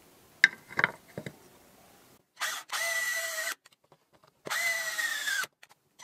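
A few sharp clicks as a plastic saw blade guard is fitted against the saw body, then a cordless drill-driver spinning in two runs of about a second each, driving a screw into the guard; the pitch of the second run sags near its end.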